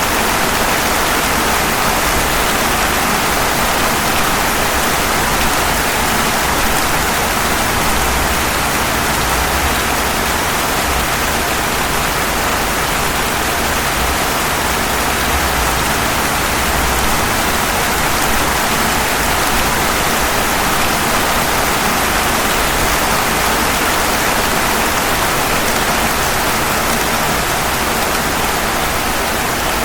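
Steady rain falling on pavement, an even, unbroken rush of drops with no change in strength.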